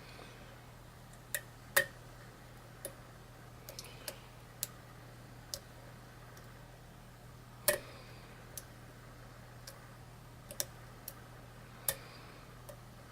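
Lock pick clicking against the pins inside a pin-tumbler challenge lock during single-pin picking: about fifteen small, sharp metallic clicks at irregular intervals, the loudest about two seconds in and just before eight seconds.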